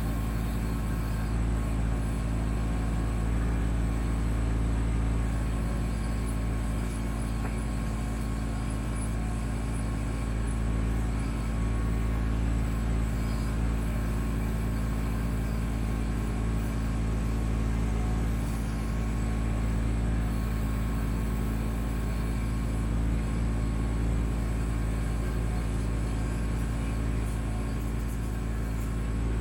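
Kubota B2650 tractor's three-cylinder diesel engine running steadily while it drives the BH77 backhoe.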